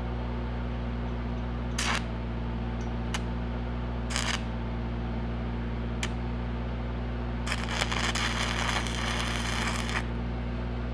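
Shielded metal arc (stick) welding tacks on a steel handrail: two short arc strikes about 2 and 4 seconds in, then about two and a half seconds of crackling arc near the end. Under it runs the steady hum of an engine-driven welding machine.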